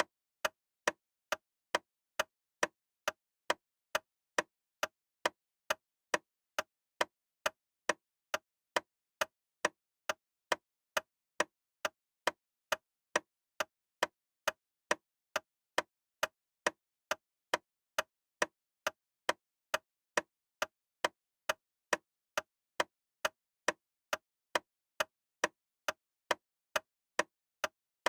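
Loud, sharp ticking that repeats steadily at about two ticks a second, with dead silence between the ticks.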